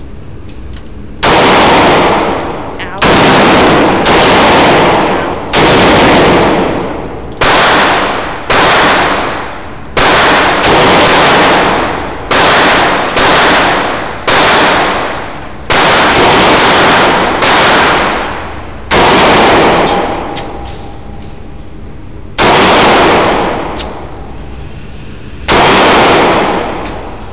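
About fifteen shots from an ATI FX45 Titan compact .45 ACP pistol, fired one at a time at an irregular pace of roughly one to two seconds apart, with longer pauses near the end. Each shot is very loud and rings on for about a second.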